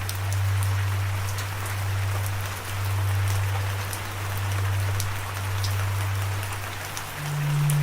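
Steady rain falling, with scattered sharp drops over an even hiss, under a low sustained musical note that steps up in pitch near the end.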